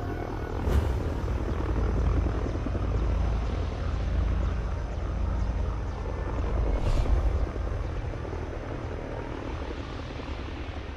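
A fishing boat's engine running with a steady low rumble, with two brief knocks, one about a second in and one about seven seconds in.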